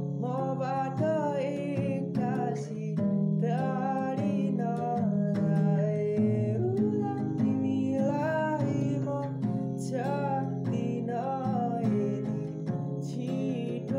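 Background music: a song, with a singing voice in phrases over a steady accompaniment.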